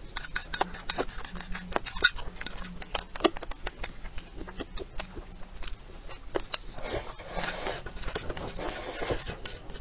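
Wet chewing and lip-smacking of a mouthful of rice in braising sauce, many small quick clicks and smacks, with chopsticks scraping the bowl. Near the end comes a longer, noisier stretch as rice is shovelled from the bowl's rim into the mouth.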